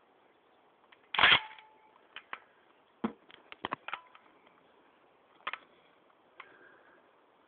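A string of sharp clicks and snaps at uneven intervals, the loudest and longest about a second in, then a quick cluster of shorter clicks and two more spaced out near the end.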